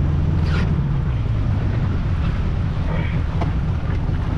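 Wind buffeting the microphone and water rushing past a small wooden boat under way, over a steady low rumble.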